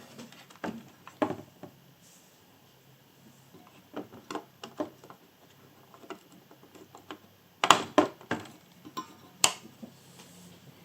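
Scattered clicks and light knocks of computer parts being handled and fitted on a motherboard, with a few sharper clicks about eight seconds in and another near the end.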